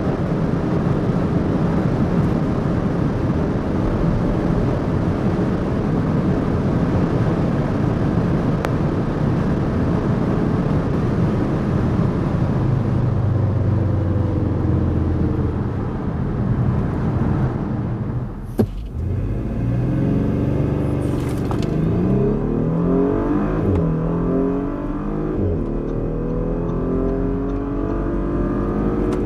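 Audi SQ5's 3.0 TFSI V6 at high speed, a steady drone of engine, tyres and wind. After a brief dip with a click about two-thirds through, the engine pulls hard again, its pitch climbing and dropping back several times through the upshifts.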